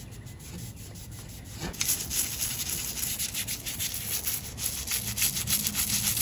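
Toothbrush bristles scrubbing grime from a joint of a metal bench frame in quick back-and-forth strokes, starting about two seconds in and louder than what comes before. Before that, softer rubbing of a cloth wiping the frame.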